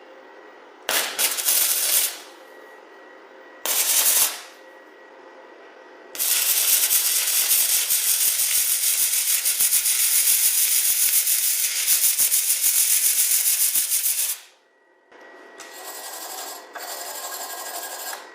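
Welding arc of an iBELL MAG/MMA gasless flux-cored welder, crackling. There are two short strikes of about a second each, then a long continuous run of about eight seconds, then a quieter, more uneven stretch near the end.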